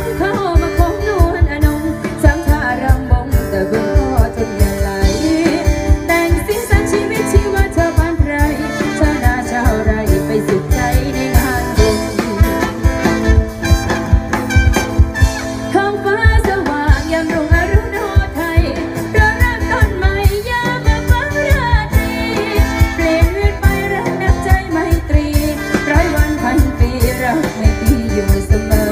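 Band music with a singer over a steady drum beat.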